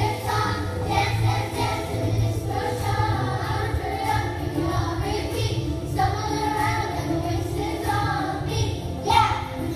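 A children's choir, joined by a few adult voices, singing together over instrumental accompaniment.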